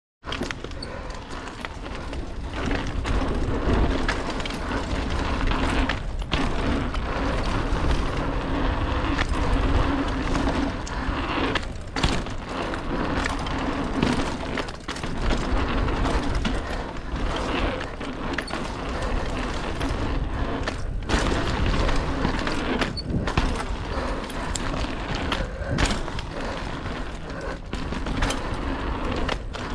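Mountain bike ridden along a packed-dirt singletrack: a steady rumble of wind buffeting the rider-mounted camera microphone and tyres rolling on dirt, broken by frequent sharp knocks and rattles from the bike jolting over bumps.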